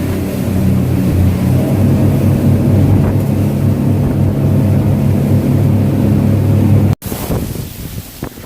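Boat's motor running steadily at cruising speed with the hull underway, a low engine hum. About seven seconds in it cuts off abruptly to quieter wind and water noise.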